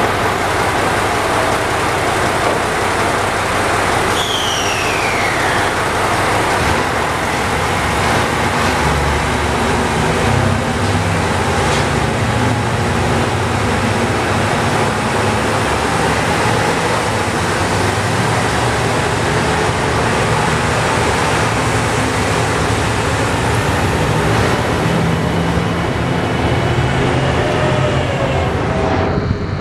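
JR Shikoku 2700 series diesel multiple unit pulling out under power: a loud, steady diesel drone whose low throb steps up in pitch as the train gathers speed. A short falling whistle sounds about four seconds in.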